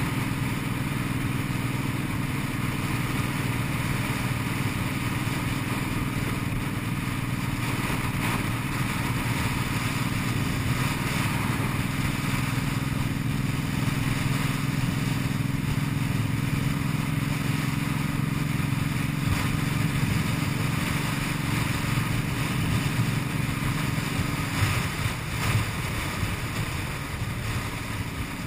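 Cruiser motorcycle engine running at a steady cruising speed under a steady rush of wind and road noise. About 24 seconds in, the steady engine note breaks off and turns uneven, as the throttle is let off or a gear changes.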